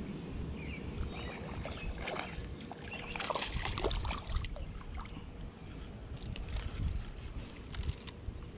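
Water splashing and sloshing in bursts as a small smallmouth bass thrashes on the fly line, about two to four and a half seconds in and again near the end, over a low steady rumble.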